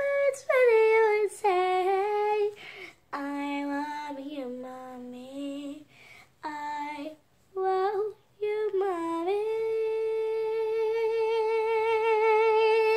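A nine-year-old girl singing: short sung phrases with brief breaks, then one long held note with vibrato from about nine seconds in.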